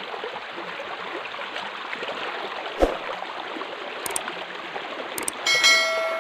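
Water rushing steadily through an old riveted metal-plate aqueduct flume, with one thump about three seconds in. Near the end, two short clicks and a bell-like chime from a subscribe-button sound effect.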